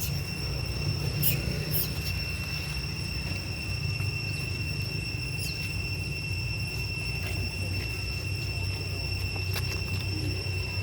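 Forest ambience: a steady high-pitched insect drone over a low rumble, with a few sharp clicks here and there.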